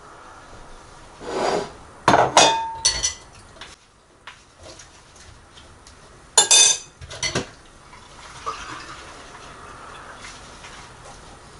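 Dishes and metal cutlery clattering and clinking in a kitchen, in two short bursts of knocks with brief ringing, about two seconds in and again about six and a half seconds in.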